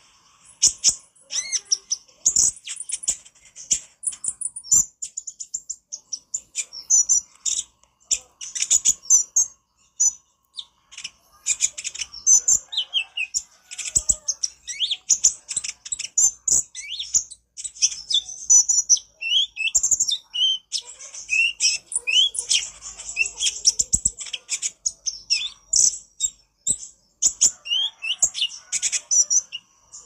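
Van Hasselt's sunbird (kolibri ninja) singing a busy, nonstop chatter of rapid high, thin chirps and trills, mixed with quick short rising notes and only brief pauses.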